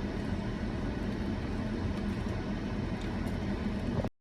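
Steady low rumble of vehicle noise, cutting off abruptly near the end.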